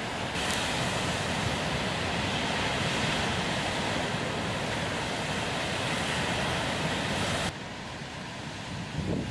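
Rough surf breaking on a rocky shore: a steady rush of crashing waves and spray. It cuts off abruptly near the end to a quieter, lower wind noise.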